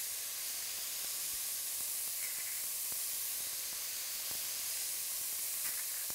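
Steady sizzling hiss of food cooking in a pan on the stove, with a few faint ticks.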